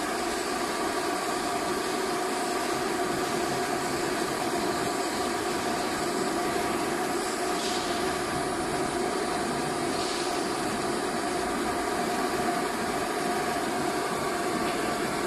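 Vacuum forming machine for suitcase shells running with a steady, even mechanical whine of several held tones over a whirring hum. Two short faint hisses come about eight and ten seconds in.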